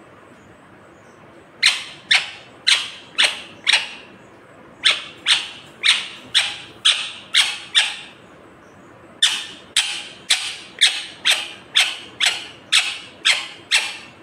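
Rose-ringed (Indian ringneck) parakeet giving short, sharp, shrill calls at about two a second, in three runs: five, then eight, then eleven.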